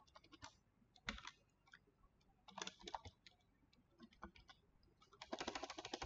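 Computer keyboard typing, quiet: scattered single keystrokes, then a quick run of rapid key presses near the end as backspace is tapped repeatedly to delete text.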